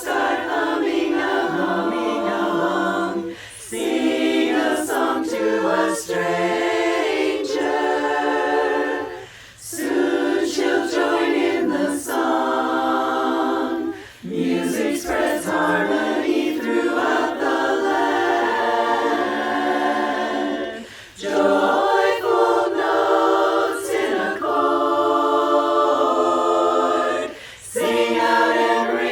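Women's barbershop chorus singing a cappella in close four-part harmony. The phrases are broken by short breaks about every five to six seconds.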